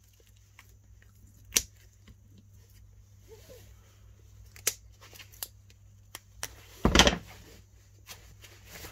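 Scattered snips and clicks of scissors cutting away the thin metal shielding from a power cable, with a louder thump about seven seconds in.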